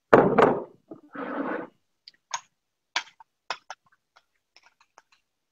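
Glass container and utensil knocking and tapping as the last of the tomato sauce is emptied onto a lasagna in a glass baking dish: one loud knock at the start, a short scrape about a second in, then a run of light clicks and taps that fade.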